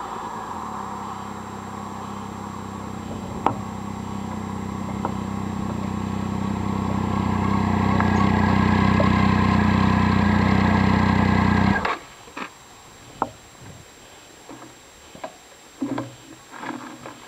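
Triumph Street Triple's inline three-cylinder engine, fitted with a quiet custom exhaust, running at low revs and growing louder over several seconds, then cut off abruptly about twelve seconds in. A few light clicks and knocks follow.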